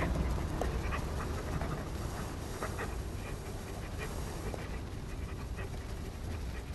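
A dog panting in distress over a low steady hum.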